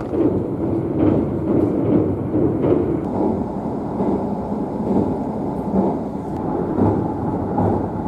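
Running noise of the Kintetsu 80000 series Hinotori electric express train heard from inside its front car: a steady rumble of wheels on rail as it crosses a steel truss bridge.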